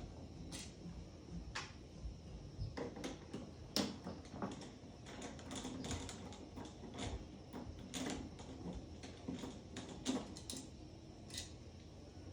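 Scattered light clicks and taps, irregularly spaced, of a hand-turned T20 Torx driver working on a truck taillight's screws.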